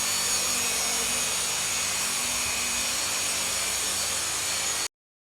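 Steady mechanical whirring and hiss with a low hum, cut off abruptly near the end.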